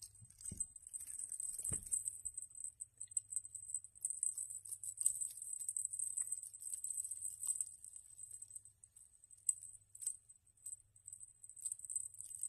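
Faint, high-pitched crackly rustling and light jingling as a kitten bats at a play-gym toy with a hanging bell, with two soft thumps in the first two seconds.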